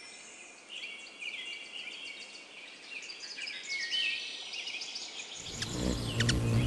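Background nature-ambience track of birds chirping and calling in quick, repeated high notes. Near the end a low, steady musical drone comes in under the birdsong.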